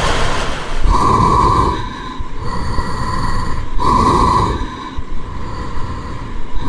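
Heavy farm machinery running loudly, with a short pitched tone sounding three times, about every three seconds.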